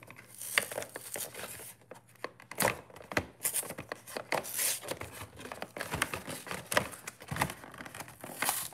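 A cardboard card collection box with a clear plastic window being handled and pried open: irregular crinkling, crackling and tearing of the packaging, with sharp clicks throughout.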